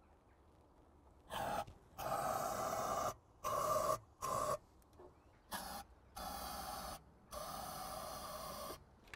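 Aerosol can of penetrating oil sprayed through a long straw in about seven short hissing bursts, each a fraction of a second to about a second long, with a slight whistle in the hiss. The oil is being sprayed down the spark plug holes onto the pistons to free a possibly seized engine.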